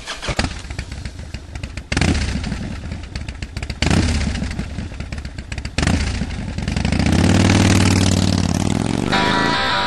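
Sport naked motorcycle engine idling and blipped with short throttle revs about every two seconds, then a longer rev that rises and falls near the end.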